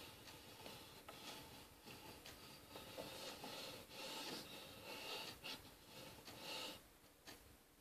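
Near silence: faint room tone with soft rustles and a few small clicks from a person's hands and clothing moving as she signs.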